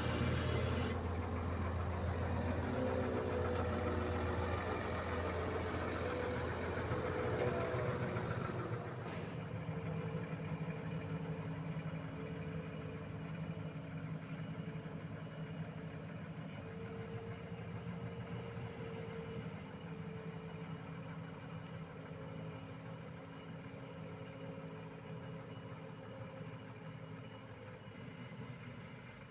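Heavy diesel engine of road-paving machinery running steadily, loudest for the first nine seconds or so and then slowly growing quieter. Short hisses come at the start, about two thirds of the way in, and near the end.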